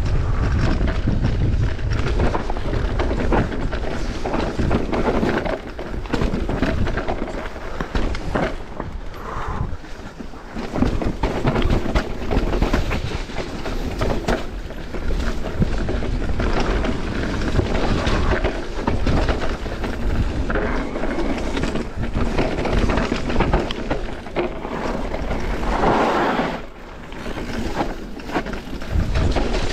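Mountain bike riding over a rough, rocky trail: a continual clatter and rattle of tyres and bike over rocks and roots, with wind buffeting the microphone.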